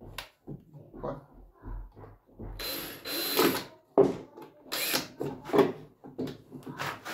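Cordless drill driving screws into a wooden board, the motor running in several short bursts, the longest about two and a half seconds in, with knocks of the wood being handled in between.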